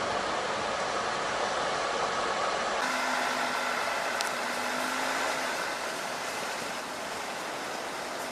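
SsangYong Rexton SUV driving slowly along a narrow forest road, heard from a camera mounted outside the vehicle: a steady hiss of tyre and wind noise with little engine note, and a faint hum for a couple of seconds in the middle.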